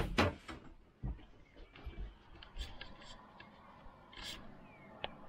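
A plug and electric cord being handled: sharp clicks and knocks at the start, then scattered light taps and a brief rustle. A box fan's faint steady hum runs underneath.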